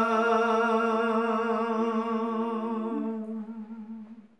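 A man's voice holding one long sung note at the end of a line of a Gojri bait, a sung folk verse, wavering slightly, then fading out near the end.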